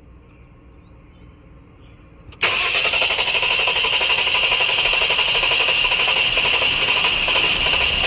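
A 2011 Jeep Grand Cherokee's 3.6-litre V6 is turned over by its starter. The cranking starts suddenly about two and a half seconds in and runs on steadily without the engine catching: a crank-no-start.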